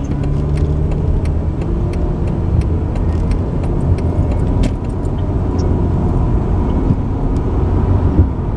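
Inside a moving car's cabin: a steady low rumble of engine and road noise, with scattered light clicks and rattles.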